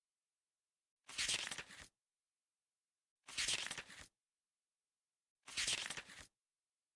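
Three short bursts of hissy, rustling noise, mostly high-pitched, each under a second with a small tail, repeating evenly about every two seconds.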